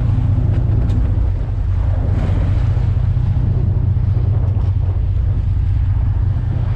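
Boat engine running with a steady low rumble under water rushing and splashing along the hull, and wind buffeting the microphone.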